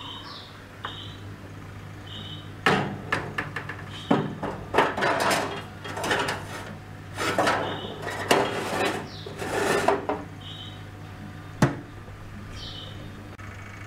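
A metal roasting tray clattering and scraping on the wire rack of a countertop electric oven as it is slid in, with a run of irregular knocks. Near the end the oven door shuts with a single sharp clack.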